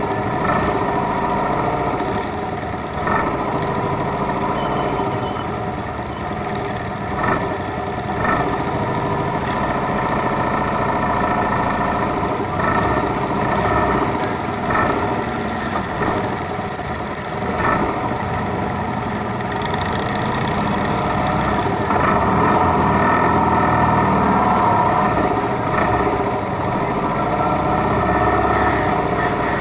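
Motorcycle engines running steadily, with brief louder moments every few seconds.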